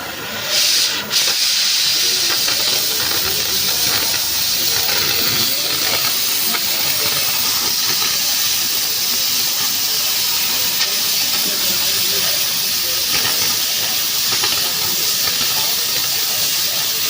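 Oxy-fuel gas cutting torch hissing steadily as it cuts steel pipe. It comes on sharply about half a second in, with a brief pop just after.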